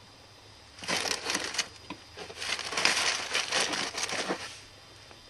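Foley crunching: a brittle material crunched and crackled by hand for a recording take. There is a short burst about a second in, then a longer one from about two seconds until near the end.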